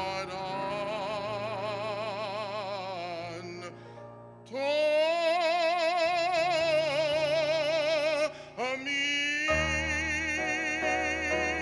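A man sings a solo in long, held notes with wide vibrato, with keyboard accompaniment. There is a brief break about four seconds in, then a louder held note, then a short pause just after eight seconds. A new phrase follows, over a sustained keyboard chord with deep bass.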